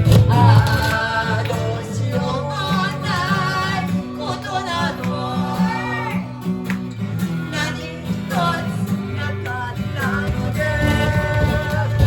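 Band music: guitar and bass accompaniment with a singing voice carrying a wavering melody line.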